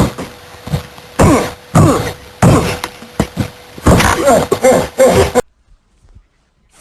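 Loud, chopped bursts of a man's voice, more like coughs, grunts and throat-clearing than words, over a faint steady hum. The sound cuts off abruptly about five and a half seconds in, leaving silence.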